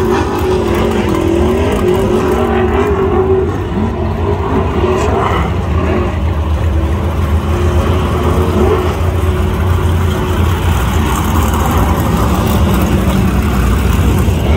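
BriSCA F1 stock cars' V8 engines racing on a shale oval, several cars together, loud and continuous. A deep steady drone runs underneath while the engine notes rise and fall in pitch as the cars accelerate and lift for the bends.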